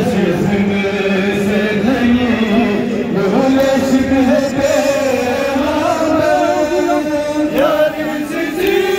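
Many men's voices chanting a mourning lament (noha) together, a continuous melodic chant.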